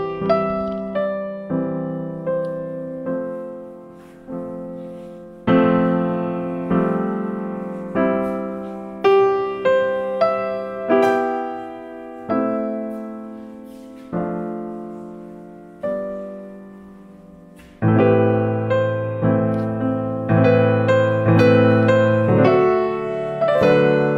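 Background piano music: single notes and chords struck one after another, each fading away. About eighteen seconds in it grows fuller and louder, with low bass chords under quicker notes.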